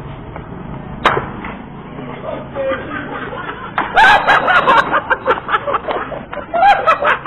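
A sharp crack about a second in, then loud voices shouting and laughing in quick bursts.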